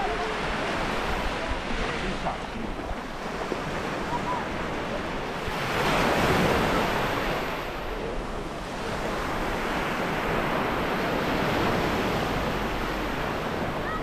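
Sea waves washing onto a stony shore, one wave breaking and swelling to its loudest about six seconds in before it draws back.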